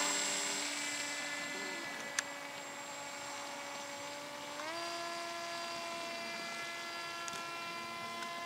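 PERMAX BL-O 2830-1100 brushless motor turning the 7x6 propeller of a Multiplex EasyStar II RC glider, a steady whine that fades as the plane climbs away. A little under five seconds in the pitch steps up slightly as the motor speeds up, then holds steady.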